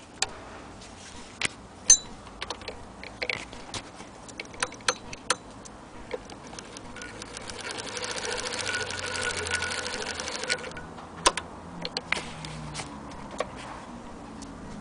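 Antique hand-crank Singer 15K80 sewing machine being cranked: after a few separate clicks, the mechanism runs for about four seconds in the middle as a rapid, even clatter. It stops, and more separate clicks follow.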